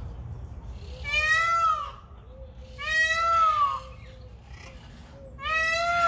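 Peacock (Indian peafowl) calling three times, loud wailing calls about a second long each that rise and then fall in pitch, roughly two seconds apart.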